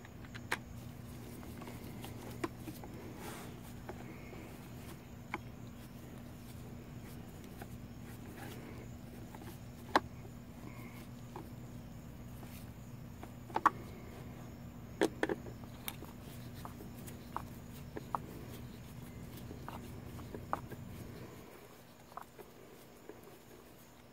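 Scattered sharp clicks and taps of a hex key and hard plastic as screws are turned into a string trimmer's guard, over a steady low hum that stops near the end.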